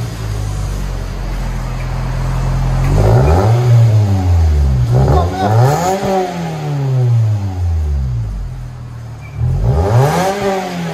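Exhaust of a 2010 Toyota Matrix S's 2.4-litre four-cylinder through a Borla Pro-XS muffler: idling steadily, then revved three times, each rev rising in pitch and falling back to idle.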